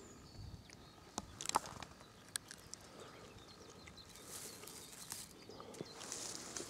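Faint rustling of dry grass and small twigs with a few sharp little clicks, from handling and moving through the grass.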